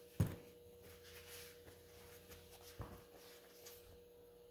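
Handling of a brake master cylinder and shop rag on a steel work cart: one sharp knock about a quarter second in, a fainter click near three seconds and light rustling, over a faint steady hum.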